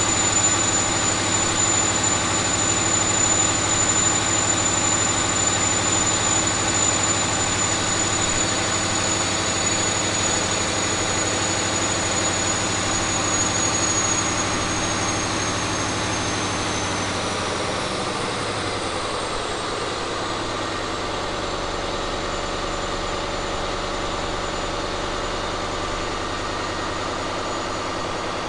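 Caterpillar 3508B twin-turbo V8 diesel engine running on a dynamometer at steady speed with a high turbocharger whine. About halfway through the whine falls in pitch and the engine settles to a lower, steady speed.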